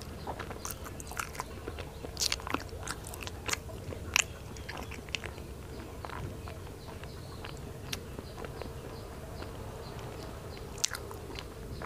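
Close-miked mouth chewing a mouthful of food: irregular soft wet clicks and smacks, with a burst of louder, sharper clicks from about two to four seconds in, then only occasional small clicks. A faint steady hum lies underneath.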